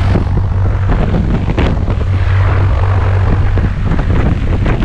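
Single-engine high-wing light aircraft's piston engine and propeller running steadily on the ground, with the propeller's air buffeting the microphone.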